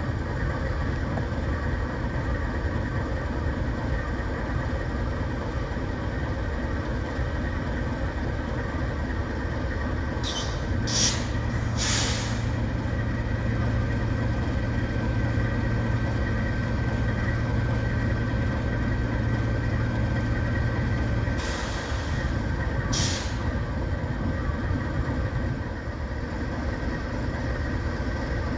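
GE AC44C6M diesel-electric locomotive idling steadily while standing at the head of a coal train. About ten seconds in, and again past twenty seconds, short sharp hisses of air break out, and a deeper steady hum joins the idle between them.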